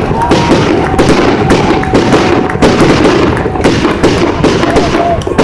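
Fireworks display going off in a dense, continuous barrage of crackles, pops and bangs.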